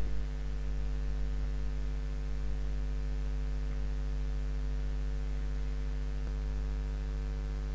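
Steady electrical mains hum with a buzzing row of overtones over faint hiss.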